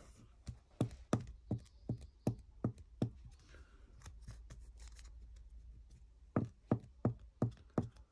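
Trading cards and clear rigid plastic card holders being handled: a quick run of sharp clicks and taps, a pause of about three seconds in the middle, then another run of clicks near the end.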